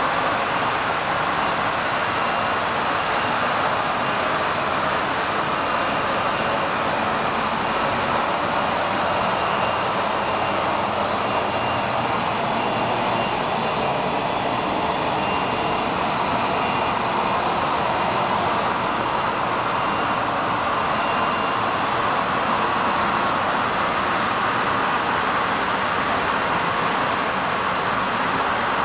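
Steady machine running noise, an even hiss with a faint high whine that comes and goes, plausibly from a WEEKE CNC woodworking center running.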